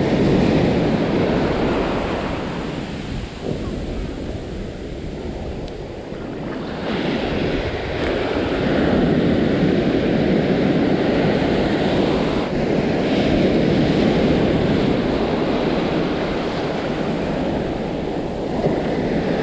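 Ocean surf breaking and washing up the sand, with wind on the microphone; the wash eases off a few seconds in and swells again from about seven seconds.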